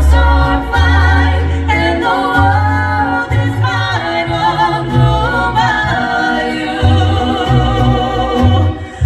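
Mariachi band performing a song: several voices singing together over a deep bass line of held notes, with the band's instruments underneath.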